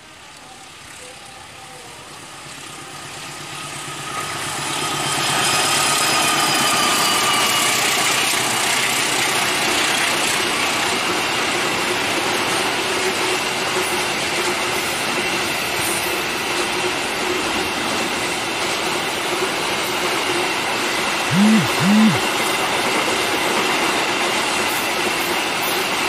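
CC206 diesel-electric locomotive hauling a container freight train through a station at speed. The sound builds over the first few seconds as the locomotive draws near, with a whine that drops slightly in pitch as it passes, then settles into the steady rolling rumble of the container wagons going by. Two short low bumps come close together late on.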